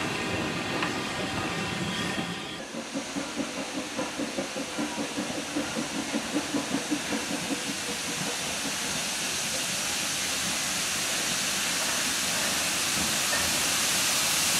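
Industrial saddle-tank steam locomotive approaching: a run of regular exhaust beats about three a second, then a steady hiss of steam that grows louder toward the end. In the first two seconds, passenger carriages rumble along the track.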